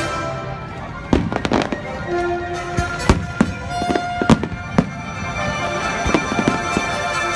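Fireworks going off in a string of sharp bangs and crackles, the loudest cracks about one to five seconds in, with music playing steadily underneath.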